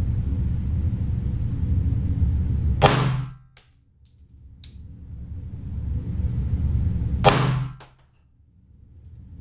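Two pistol shots about four and a half seconds apart from a Glock 23 fitted with a 9mm conversion barrel, firing 9mm +P 115-grain jacketed hollow points. Each is a single sharp crack with a short ringing tail.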